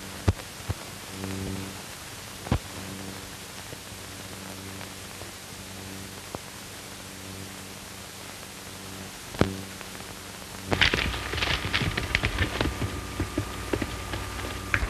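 Steady hiss and low hum of an early sound-film optical track, with scattered sharp pops. About eleven seconds in, an irregular clatter of horses' hooves on dirt begins and keeps going.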